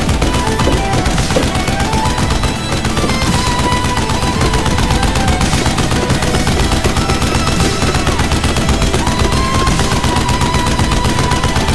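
Motorized Nerf ball blaster firing full-auto: a fast, unbroken run of shots that stops suddenly at the end, with music underneath.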